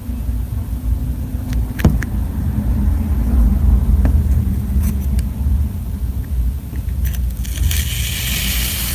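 Kinetic sand being worked with metal tools in a plastic tub: a few light clicks and taps in the first half, then from about three-quarters of the way in a crunching hiss as a metal spoon scoops into the sand. A steady low rumble runs underneath throughout.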